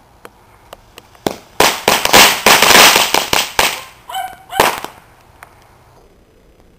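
Homemade 'Newport bomb' going off under an upturned plastic tub: a few small pops, then about three and a half seconds of rapid, loud, crackling bangs like a string of firecrackers, which stop abruptly about five seconds in.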